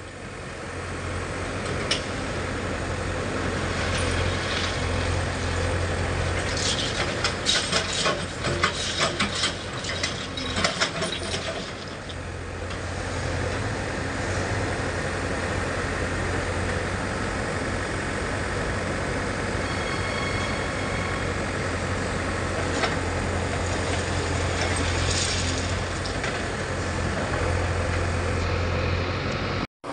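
JCB 3DX backhoe loader's diesel engine running steadily while the backhoe works. A burst of rapid knocks and clanks comes about seven to eleven seconds in.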